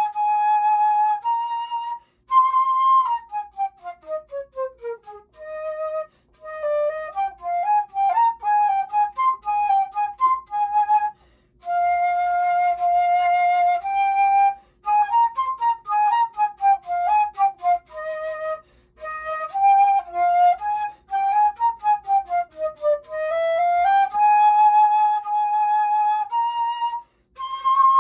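Unaccompanied concert flute playing a solo piece: long held notes broken by quick descending and rising runs, with a few short pauses between phrases.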